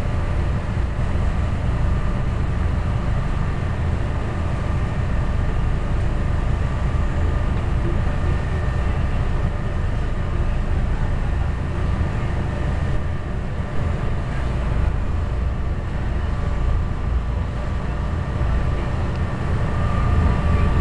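A boat's engine running steadily under way: a constant low rumble with a faint steady whine above it, mixed with the rush of water churning along the hull.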